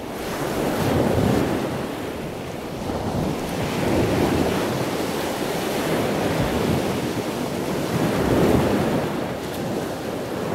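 Ocean surf sound: a steady rushing noise that swells and ebbs slowly, fading in over the first second.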